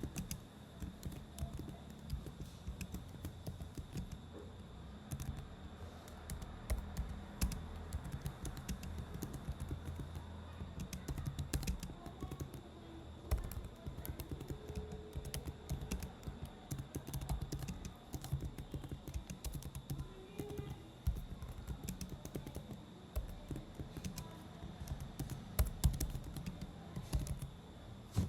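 Computer keyboard being typed on quickly and steadily during a typing speed test, a dense run of irregular key clicks, several a second with only brief gaps, at about 32 words per minute.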